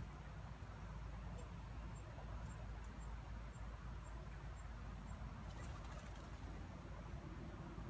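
Quiet outdoor ambience: a steady low rumble with faint high insect calls. There is a brief patch of faint rustling clicks about five and a half seconds in.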